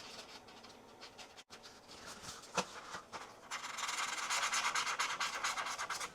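A pen scribbling on a plate, drawing a mark. There is faint scratching at first, then from about halfway a louder, fast run of rapid back-and-forth strokes as the mark is filled in.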